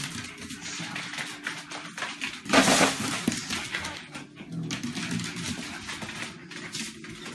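Pugs playing on a wooden floor: a busy run of small clicks and scuffles, with one loud noisy burst about two and a half seconds in.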